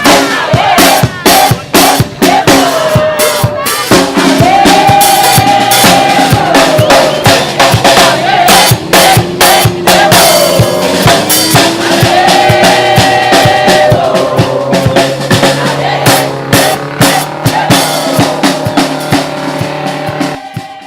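Background pop-rock music with a steady drum-kit beat and sustained melody lines, fading out at the very end.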